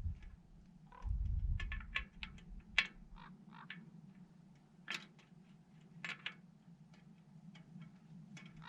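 Small scattered clicks and taps of hand work on a bicycle cable being fitted, with low rumbling handling noise in the first two seconds or so and a steady low hum underneath.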